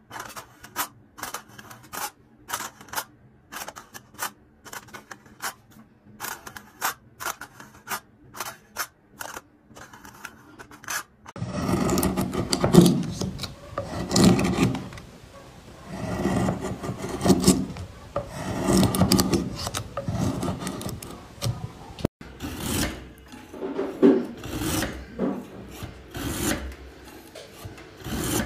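A string of short handwork sounds: first sharp, quick crackling clicks of a craft knife cutting into a foil container lid; about eleven seconds in, a carving tool shaving pine wood in loud rasping strokes roughly every one and a half seconds; after an abrupt cut near the end, a manual meat slicer's blade sliding through a roll of meat in repeated strokes.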